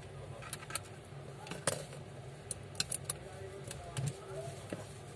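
Scattered sharp clicks and taps of a Vivo V21's plastic mid-frame and parts being handled and pressed into place during reassembly, over a steady low hum.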